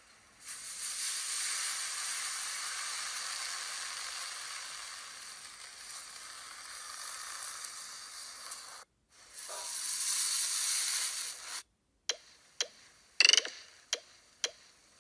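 Slime being squashed by a metal potato masher in a plastic tub: a steady crackling hiss for about eight seconds, then a second stretch of hiss after a short break. Near the end a mobile game ad cuts in, with a string of sharp clicks and one louder pitched zap, the loudest sound here.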